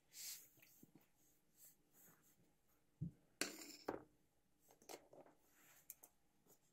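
Near silence, broken about three seconds in by a few brief handling noises as a hand reaches over: a low knock, a short rustle and a click. A few faint ticks follow.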